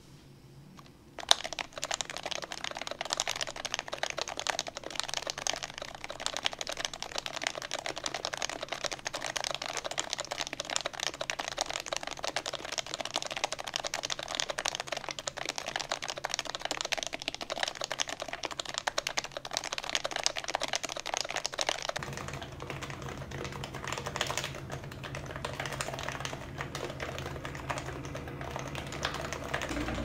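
Fast, continuous typing on an HHKB-layout keyboard with Topre switches in an aluminum-plated Taycan by DN case: rapid keystroke clicks that start about a second in with one sharp, loud keystroke. Around two-thirds of the way through the typing turns deeper and duller.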